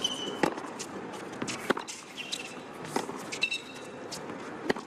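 Tennis rally: four racquet strikes on the ball, about one every 1.3 seconds, with shoes squeaking briefly on the hard court between shots.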